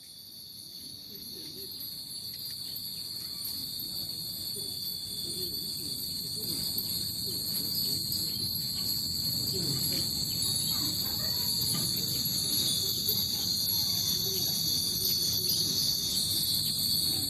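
Insects chirring steadily at a high pitch, fading in over the first few seconds, with a faint low rustling underneath.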